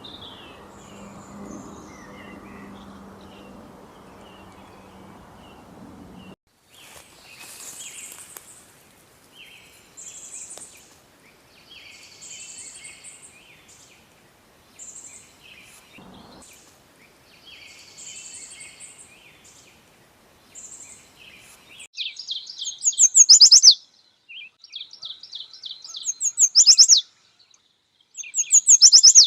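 Songbirds singing. A low steady hum cuts off suddenly after the first few seconds, then short high-pitched phrases repeat every couple of seconds, and near the end louder, rapid trilled phrases come in bursts.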